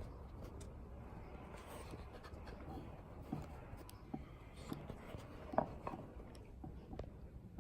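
Faint scattered clicks and light scraping of small metal lock parts being handled: pins and the lock cylinder being picked over by hand.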